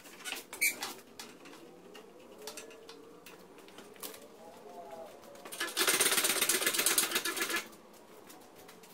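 Metal boat steering cable being pushed and worked into place: a few clicks, then about two seconds of rapid rattling near the middle.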